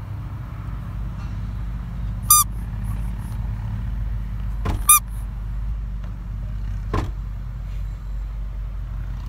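A small green rubber squeeze toy squeaks twice, two short high squeaks about two and a half seconds apart, over the low steady rumble of the car. A short click follows a couple of seconds later.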